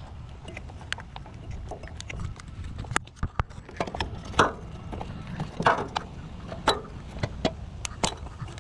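Plastic wiring connectors being unlatched and pulled off a generator carburetor: irregular sharp clicks and light taps, roughly one a second, over a low steady background rumble.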